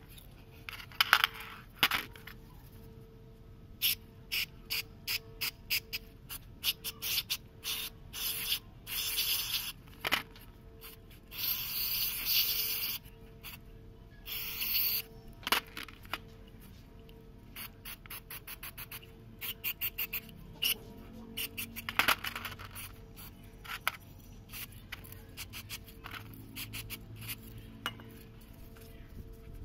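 Steel parts of a diesel fuel injector (nozzle holder, spring, pushrod) clicking and clinking as they are handled and set down in a metal tray. Near the middle come two bursts of hissing from a spray can of cleaner.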